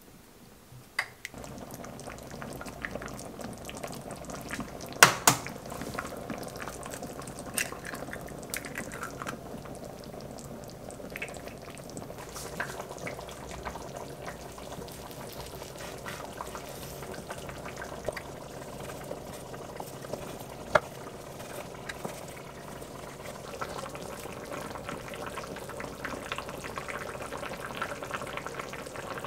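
Soft-tofu stew (sundubu-jjigae) simmering in an earthenware pot, a steady bubbling, broken by a few sharp knocks, the loudest about five seconds in.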